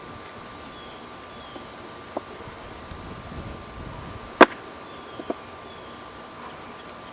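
A few sharp clicks and knocks from handling wooden beehive parts, the loudest about four and a half seconds in, over a steady background hiss.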